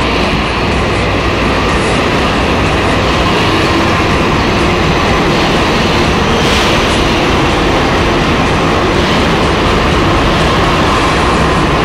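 Prague metro train (81-71M unit) pulling into the station along the platform and coming to a stop, a loud, steady rail noise from wheels and running gear. A brief hiss sounds about six and a half seconds in.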